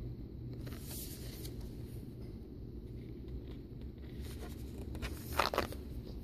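Oracle cards being handled: soft sliding and rubbing of card stock, with one brief louder scrape of a card about five and a half seconds in, over a low steady hum.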